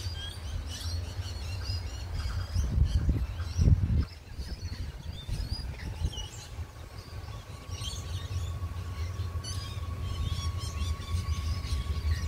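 Birds chirping over a steady low rumble that swells a couple of times around the third and fourth seconds. About two-thirds of the way in, a faint steady whine joins as the electric train approaches.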